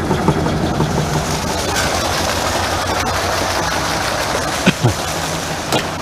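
Grain-conveying machine running steadily, moving barley through its tube, with a dense hiss over an evenly pulsing low drone.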